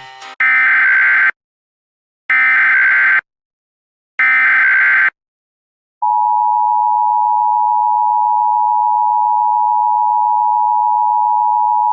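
Three Emergency Alert System SAME header bursts, short buzzy bursts of digital data tones just under a second each, about a second apart. After a short silence, about six seconds in, the steady two-tone EAS attention signal starts and holds.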